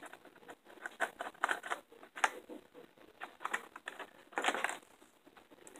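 Fishing tackle being handled: irregular light clicks and rustles, with a longer rustle about four and a half seconds in.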